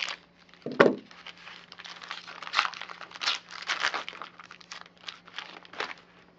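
Foil wrapper of a baseball card pack crinkling and rustling in a run of short crackles as it is cut with scissors and pulled open by hand, with one sharper, louder crackle about a second in.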